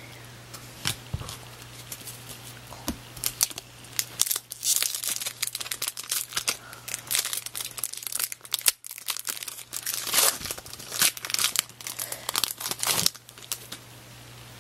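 Foil wrapper of a 2002 Bowman baseball card pack crinkling and tearing as it is opened by hand, a dense run of crackles that starts about four seconds in and stops shortly before the end.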